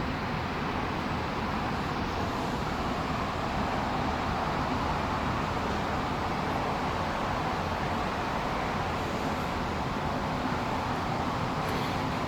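Steady, even rushing noise of a light-rail train standing at a station with its doors open, with a light click near the end.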